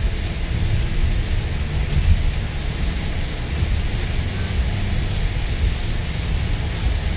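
Heavy rain drumming on a first-generation Toyota Alphard's windscreen and body, heard inside the cabin at highway speed, with a steady hiss over a low rumble of tyres and road noise.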